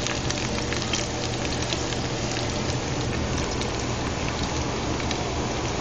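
Sliced potatoes sizzling as they fry in a cast iron skillet on a wood-burning stove, a steady hiss full of fine crackles, with a steady low hum underneath.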